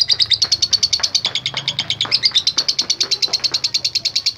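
Lovebird singing a long 'ngekek' chatter: a fast, unbroken run of short, high, sharp notes, about fourteen a second.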